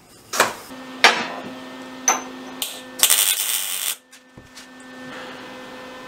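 A broken steel end mill tossed among metal machining chips: several sharp metallic clinks and a rattle in the first four seconds, one with a brief high ring. A low steady hum runs behind them.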